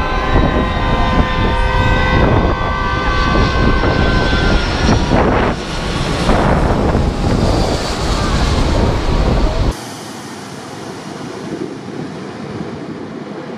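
Four-engined wide-body jet airliner passing low overhead on final approach, very loud, with a high engine whine over a heavy rumble. After it goes over, the whine fades into a sweeping rush of jet noise. About ten seconds in, the sound drops abruptly to a quieter steady rush.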